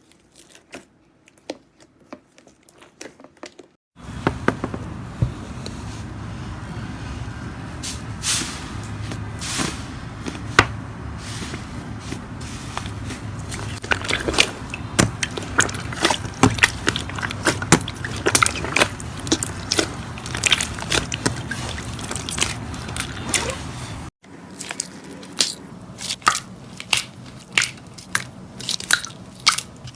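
Slime being squeezed and pressed by hand, giving a run of sharp wet pops and crackles. The pops are faint at first; from about four seconds in they sit over a steady hiss, which cuts off abruptly a few seconds before the end.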